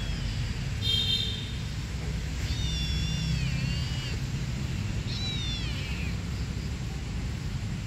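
A kitten meowing three times in a high, thin voice: a short call about a second in, a longer wavering one, then one that falls in pitch. A steady low background rumble runs underneath.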